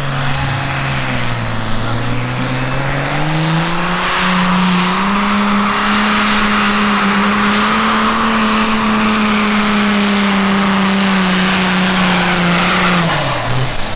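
Case IH pro stock pulling tractor's diesel engine at full load, pulling the weight sled. The revs climb over the first few seconds, hold high and steady, then drop away near the end as the pull finishes.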